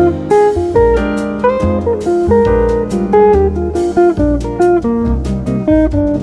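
Background music: an instrumental tune of plucked notes over a steady beat.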